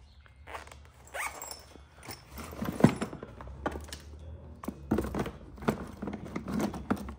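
Hand tools being handled in a plastic Milwaukee Packout box: screwdrivers and pliers clicking and knocking against each other and the case in a series of short knocks, the loudest nearly three seconds in.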